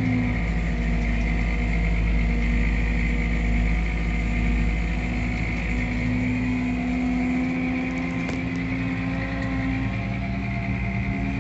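Farm tractor's diesel engine running steadily under way, heard from inside the cab, with a deep low rumble.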